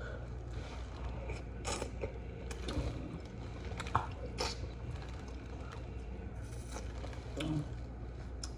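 Close-up eating sounds: chewing with scattered short clicks and crunches over a steady low hum.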